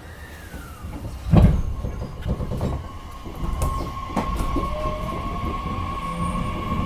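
On-board running sound of a JR Kyushu 813-series electric train's motor car pulling away, with traction motor whine that slowly rises in pitch over the rumble of the wheels. There is one loud clunk from the wheels and track about a second and a half in.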